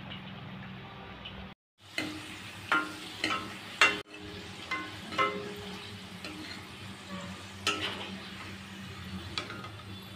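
Potato fries sizzling in hot oil in a metal kadai, with a steel spoon clinking sharply against the pan several times as the fries are stirred and turned. The sound cuts out briefly about a second and a half in.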